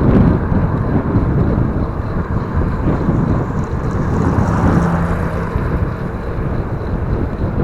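Wind buffeting the microphone of a cyclist riding along, a dense rumbling rush with a brief low hum joining in around the middle.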